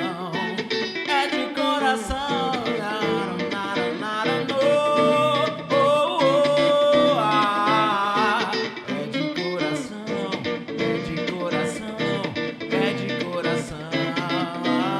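Soul song played on guitar, with a melody line that bends between notes and holds one long note around the middle.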